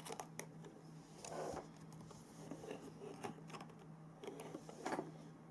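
Faint, scattered clicks and rattles of a hand-worked 3D-printed PLA rack-and-pinion mechanism, its plastic gears and racks clicking as they move.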